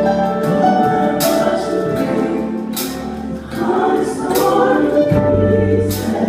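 Live gospel worship song: a band with a group of singers, over held low notes and cymbal crashes about every one and a half seconds.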